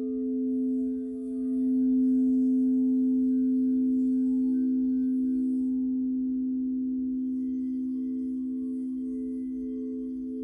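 Crystal singing bowls sounding a sustained hum of two main low tones with a slow pulsing waver. The sound swells about two seconds in and then slowly fades.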